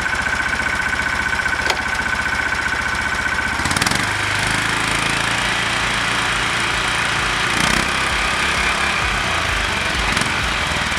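20-horsepower Lifan KP460E engine running with its CVT and spur-gear reverse gearbox, the straight-cut gears giving a steady high whine while in gear. About four seconds in a shift of the reverse lever clunks and the whine stops, leaving the engine running alone.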